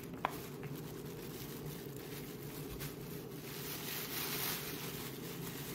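Faint rustling and crinkling of a thin plastic grocery bag being shaken out, over a steady low background hum.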